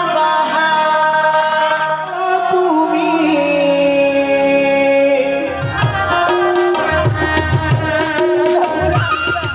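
Folk song with a held, wavering sung melody; hand-drum strokes come in about halfway through and beat on to the end.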